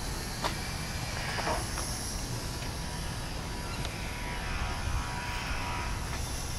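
Raymond 24-volt electric ride-on pallet jack driving slowly across asphalt: a steady low running noise with a faint whine from the electric drive and a few light clicks.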